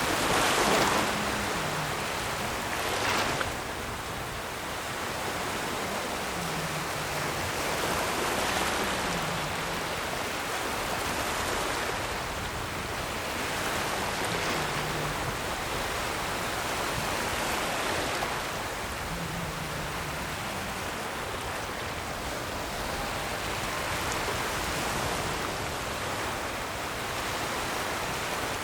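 Ocean waves washing in continuously as an even hiss of surf. The wash swells and eases every few seconds, with the strongest surges about one second and three seconds in.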